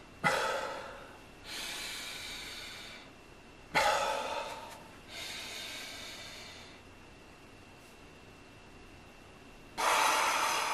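A man's deep, audible breaths in and out, slow and controlled while he holds a shoulder stretch. There are five breath sounds, with a pause of about three seconds before the last and loudest one near the end.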